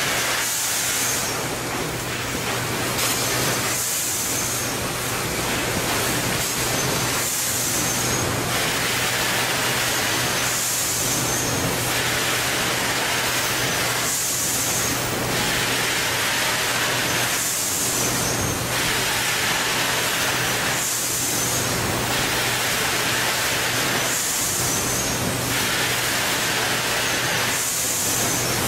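Automated bag-packaging and conveyor line running: a steady machine hum under a constant whir, with a hiss of air about every three seconds, each lasting about a second.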